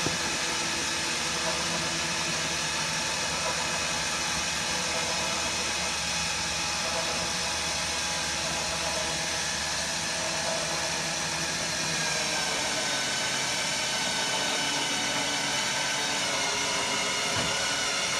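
Powered lift of a motorcycle carrier running steadily as it raises a deck loaded with two motorcycles, a continuous motor-and-pump whine whose tone shifts slightly about twelve seconds in.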